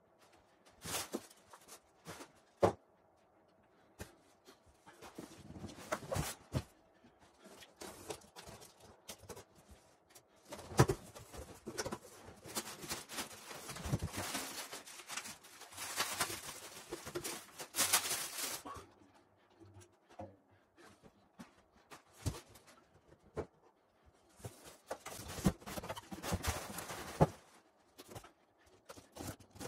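Unpacking a drum kit: plastic wrapping and bubble wrap rustling in longer stretches, between scattered clunks and knocks of drums, stand hardware and cardboard boxes being handled and set down.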